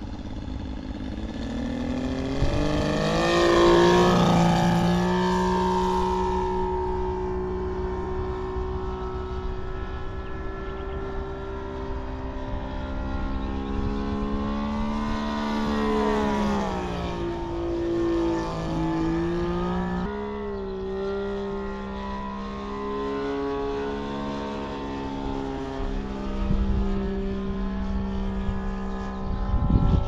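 Radio-controlled model biplane flying overhead, its radial engine running with a steady note. The note swells and drops in pitch as the plane passes, once about 3–5 seconds in and again around 16–17 seconds. Wind rumbles on the microphone.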